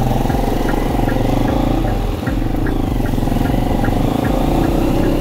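A motor vehicle's engine running steadily close by, with a faint regular ticking about twice a second.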